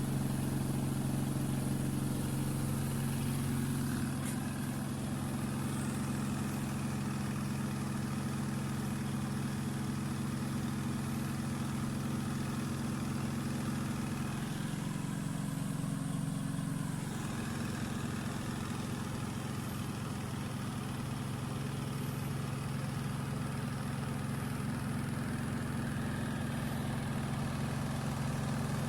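Electric motor of a small household laundry machine running with a steady hum, its pitch shifting slightly about 4 and 17 seconds in.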